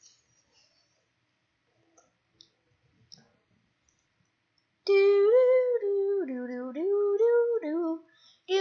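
A person humming a wordless tune on 'doo' sounds, with held notes that step down and back up, starting about five seconds in after a few faint clicks.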